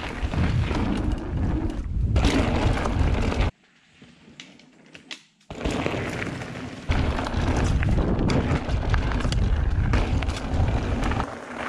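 Mountain bike rolling fast down a dirt trail: a dense rumble of tyres and wind buffeting the camera, with sharp clicks and rattles from the bike over bumps. The noise cuts out suddenly about three and a half seconds in, stays low for about two seconds, then comes back and runs loud again.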